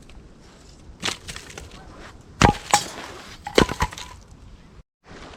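Small hatchet chopping and splitting a piece of firewood into kindling: about five sharp knocks, two of them close together, some with a brief metallic ring.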